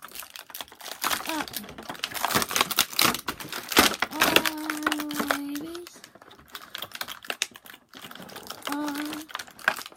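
Stiff plastic action-figure packaging clicking, rattling and crinkling as the figure is pried out of its tray, in quick irregular clicks. A drawn-out voice cuts in partway through.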